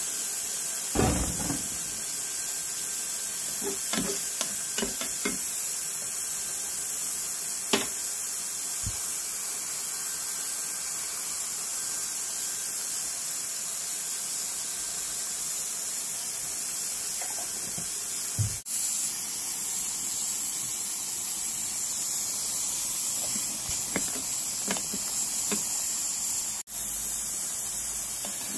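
A pan of octopus, shrimp and mushrooms simmering in a sweet-spicy Korean galbi sauce: a steady hiss of steam and bubbling, with a few light knocks.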